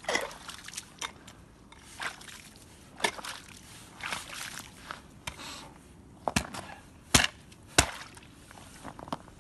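Steel ice chisel chipping out a refrozen ice hole: sharp wet strikes into ice and slush about once a second, the three loudest near the end.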